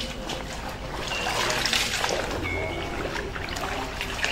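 Batik cloth being rinsed by hand in a tub fed by a running hose: water trickling and splashing as the wet cloth is lifted and dunked, washing the water-glass fixative out of it. The splashing swells about a second and a half in.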